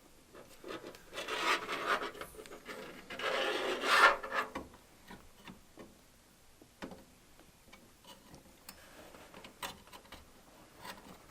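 Cables rubbing and a zip tie rasping as wires are bundled inside a PC case: two longer rasps in the first half, then light scattered clicks.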